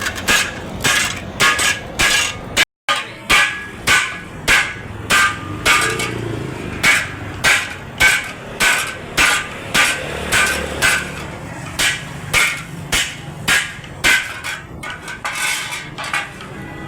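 Hammer blows on hot steel over an anvil, about two a second, each strike ringing. The hammering breaks off in a brief silence near three seconds in, then resumes.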